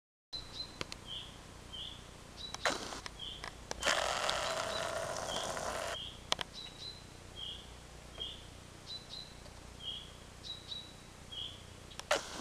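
Short high chirps repeating steadily, about one or two a second, from a small animal. There are a few sharp clicks, and a two-second rush of noise about four seconds in is the loudest sound.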